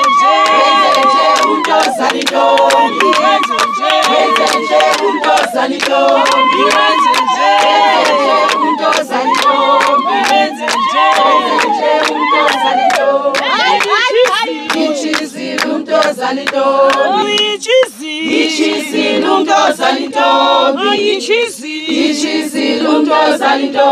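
A group of women singing a Zulu traditional song together, unaccompanied, with many sharp claps running through it and a few sliding, shouted notes near the middle.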